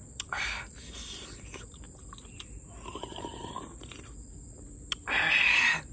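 A person sucking cooked snails out of their shells: short slurps, the loudest and longest near the end, with small clicks of shell between them.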